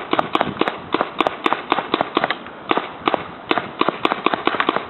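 Paintball gun firing rapid shots, about four a second in uneven runs of sharp pops.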